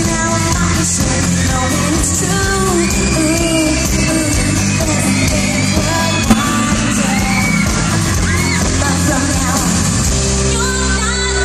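Live pop concert: a female singer singing into a handheld microphone over a band with electric guitars and keyboards, with yells from the crowd.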